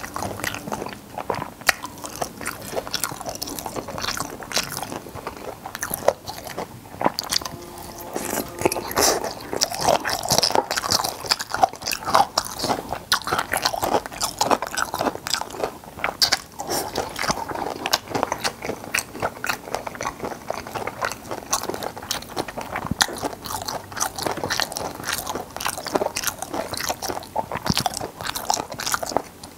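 Close-miked chewing of braised stingray, with the soft cartilage crunching between the teeth in a dense run of small crackles.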